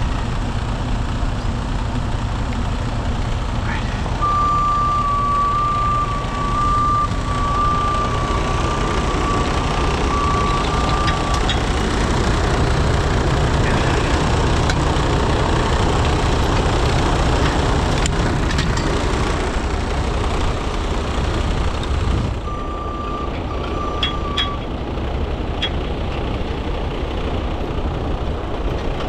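Heavy truck diesel engine running steadily under work, easing off about twenty-two seconds in. A backup alarm beeps repeatedly for about seven seconds starting about four seconds in, and again briefly a couple of seconds after the engine eases.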